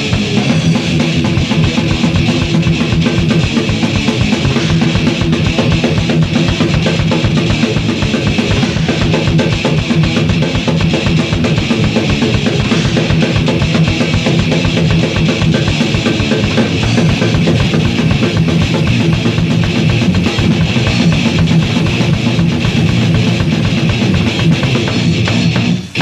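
Thrash metal band playing an instrumental passage from a 1989 demo tape: fast, dense drumming with a rapid bass drum under guitars. The band breaks off briefly near the end.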